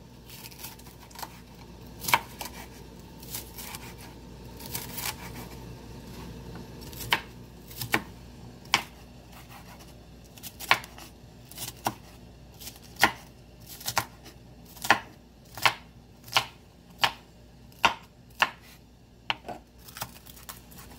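Chef's knife chopping a green bell pepper on a wooden cutting board: sharp knocks of the blade meeting the board, irregular at first, then a steadier run of about one or two a second in the second half.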